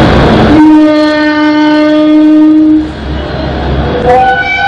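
Locomotive air horn sounding as a two-tone horn. One long low note lasts about two seconds, then after a short gap a briefer high note sounds near the end.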